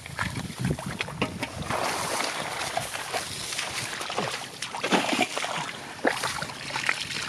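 Muddy water sloshing and splashing, with many short wet slaps and splatters, as hands and feet work through a flooded rice-field mud hole.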